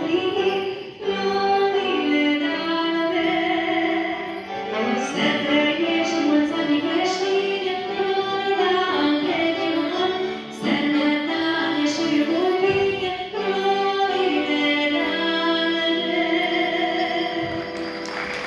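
A woman singing a Romanian Christmas carol (colindă) with music, her notes bending and held, the last one held long near the end.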